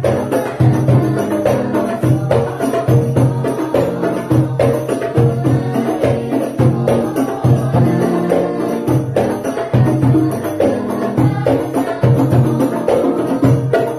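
Sholawat devotional song: group singing over a steady beat of rebana frame drums, with an electronic keyboard accompanying.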